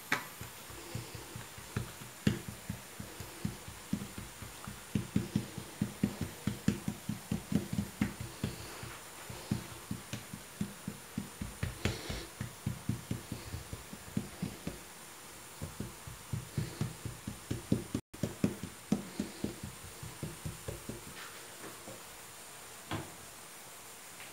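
Hands patting and pressing a ball of dough flat against a countertop, spreading it into a thin sheet: a run of quick, soft slaps at about three a second, with a short lull midway, stopping a few seconds before the end.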